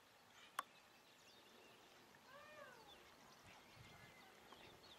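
Near silence with faint bird chirps. A single sharp click comes about half a second in, and a faint animal call that rises and falls in pitch comes about two and a half seconds in.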